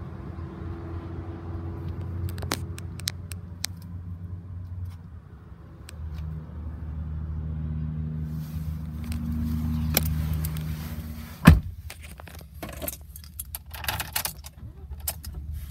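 Keys jangling now and then over a steady low hum that rises in pitch for a few seconds in the middle, with one sharp knock about eleven and a half seconds in.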